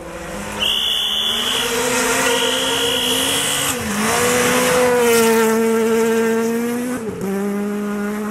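Rally car engine held at high revs under full throttle, the pitch dipping briefly for a gear change about four seconds in, then climbing and holding again before dropping lower near the end. A high, steady whine sounds twice in the first few seconds.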